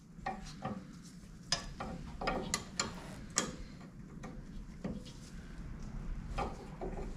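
Steel spanner clicking and clinking on the bolts and bleed nipple of a rear brake caliper as they are checked for tightness: a string of sharp, irregular metallic clicks.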